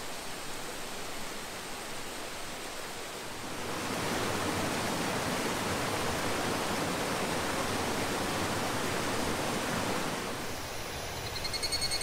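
Water of Shasui Falls rushing steadily, louder from about four seconds in until near the end. A rapidly pulsing high-pitched buzz comes in about a second before the end.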